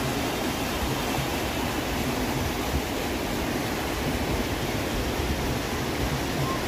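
Steady rush of fast-flowing river water, the Ganges running strong under a bridge, with an uneven low rumble beneath it.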